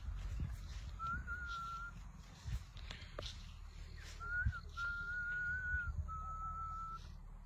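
A person whistling four steady, level notes, one of them short and the last a little lower, over a low rumble.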